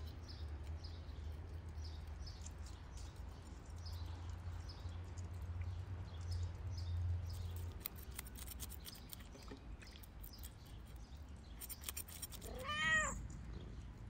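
A domestic cat meows once near the end, a single call rising and falling in pitch, and it is the loudest sound here. Before it, a knife scrapes the scales off small fish over a basin of water in soft repeated strokes, over a low steady rumble that stops partway through.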